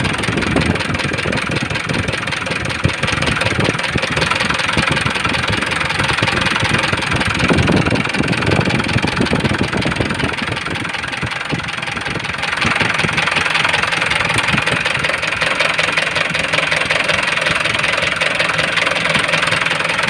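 Mitsubishi Fuso 4D34 four-cylinder turbo-diesel running with a loud knock, a little louder from about twelve seconds in. It is freshly overhauled but has heavy blow-by: the mechanic takes it for an internal fault, possibly a lock that came loose inside and scored the cylinder liner.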